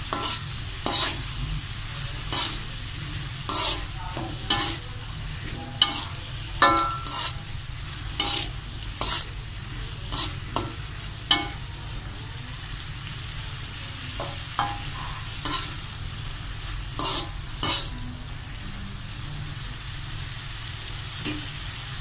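Spatula scraping and knocking against a wok as a vegetable stir-fry is tossed, with a steady sizzle underneath. The strikes come irregularly, about one a second, and stop a few seconds before the end, leaving the sizzle.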